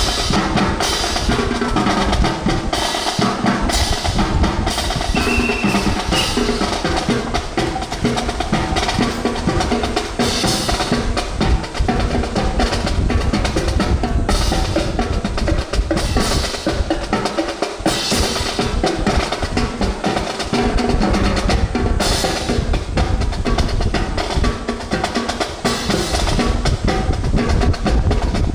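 Marching drum music, with snare and bass drums, including drum rolls, over pitched accompaniment; sharp strikes come steadily throughout.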